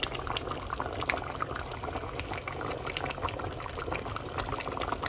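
Pot of chicken and bottle gourd curry simmering at a boil, bubbling steadily with many small pops.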